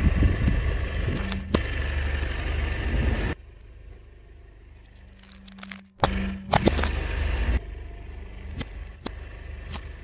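A car tyre rolling slowly over objects and crushing them: a low rumble from the car with sharp cracks and pops as the items give way. It drops quieter for a few seconds midway, then comes back suddenly with a burst about six seconds in, as a soda bottle bursts under the tyre.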